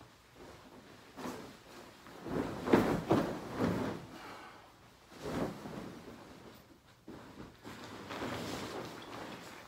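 A duvet cover being shaken out and spread over a bed: fabric rustling and swishing in irregular bursts, loudest a few seconds in.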